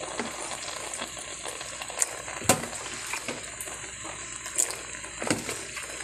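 Diced chicken breast cooking in a pot on high heat, its liquid steadily sizzling and bubbling, with a few sharp knocks and pops, the loudest about two and a half seconds in.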